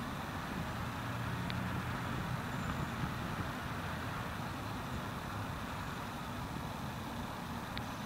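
Steady rumble of road traffic with a low engine hum, and two faint ticks, one about a second and a half in and one near the end.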